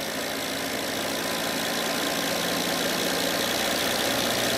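A Lada's four-cylinder engine idling cold just after starting, running with a slight shiver, its sound growing gradually a little louder.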